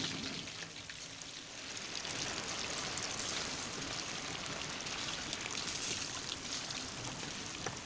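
Coated chicken pieces deep-frying in hot oil in a kadai: the oil sizzles and bubbles steadily with fine crackling. It eases briefly about a second in, then picks up again.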